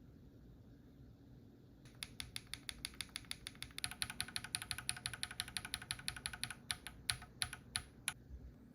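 Typing on an Enter67 custom mechanical keyboard with an aluminium plate and BSUN (KEYS U Studio) Bunny linear switches: light 42 g early bottom-out linears with a PC top housing and PA bottom housing. Rapid keystrokes start about two seconds in, quicken into a dense run, and end with a few separate presses.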